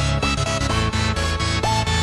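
Background electronic music with a steady beat and synth notes that slide up into each pitch.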